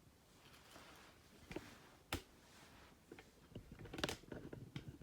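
Faint handling noise: soft rustling with a few light clicks, the sharpest about two seconds in and again about four seconds in.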